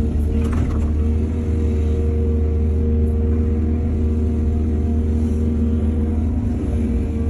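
Excavator's diesel engine running steadily with a deep rumble, with a short burst of noise about half a second in.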